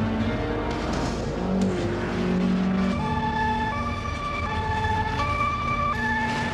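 Two-tone emergency-vehicle siren (German 'tatü-tata' type), alternating between a lower and a higher pitch about once a second, starting about three seconds in.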